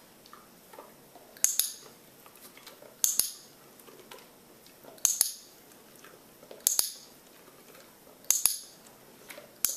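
Bowl clinking sharply six times, about every one and a half to two seconds, each a quick double clink with a short bright ring.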